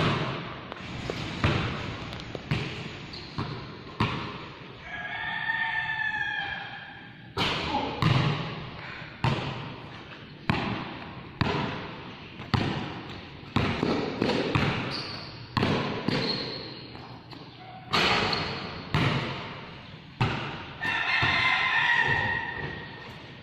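A basketball bounces on a concrete court floor in a steady run of dribbles, about one to two a second, each hit echoing under the covered court's roof. A drawn-out pitched call sounds twice, about six seconds in and again near the end.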